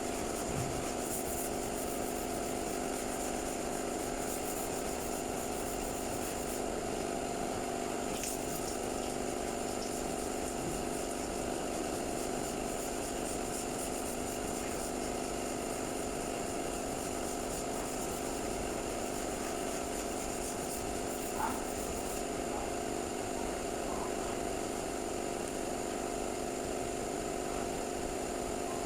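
A machine running steadily with a constant multi-toned hum, with one brief click a little past the middle.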